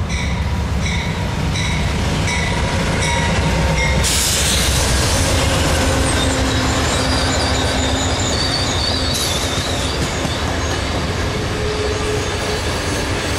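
Amtrak California Zephyr passing close at speed behind two GE P42DC diesel locomotives. A grade-crossing bell dings about every 0.7 s over the train's rumble for the first few seconds. About four seconds in, the locomotives go by in a loud rush, followed by the bilevel Superliner cars rolling past, with a wavering wheel squeal.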